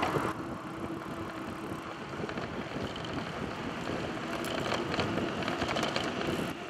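Steady rush of wind and road noise heard from a moving bicycle, with traffic engines in the background and a few faint clicks about five seconds in.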